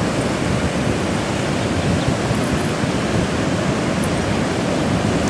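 Rough ocean surf breaking on the beach, a steady rushing noise, with wind on the microphone.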